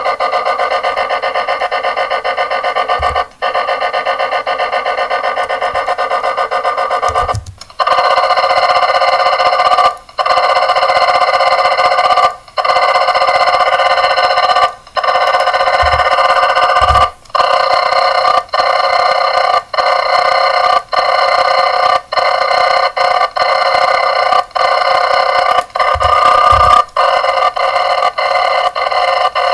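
An alarm clock ringing continuously, a rapid ringing made of several steady tones. Brief breaks come closer together as the sped-up recording repeats: every few seconds at first, about once a second by the end.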